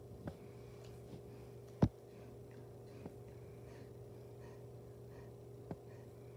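Puppy licking a leather ottoman: soft, scattered wet tongue clicks, with one sharper click about two seconds in, over a steady low hum.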